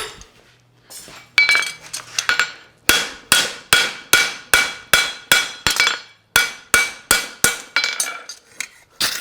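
Farrier's hammer striking a steel horseshoe branch on the anvil to level it. There are a few light taps about a second in, then steady ringing blows at about three a second.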